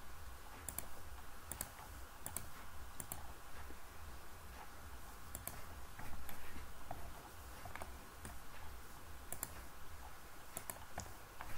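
Computer mouse clicks, irregular, roughly one a second, each a sharp tick often doubled by press and release, as line segments are picked for trimming. A faint low hum runs underneath.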